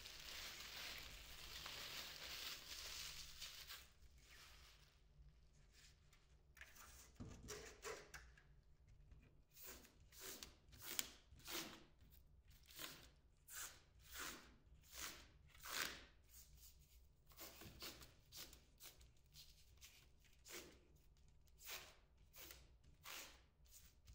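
Plastic wrapping crinkling steadily as it is pulled off a twin-wall polycarbonate panel. From about halfway in comes a run of short rasping pulls, about one a second, as the blue protective film is peeled from the panel.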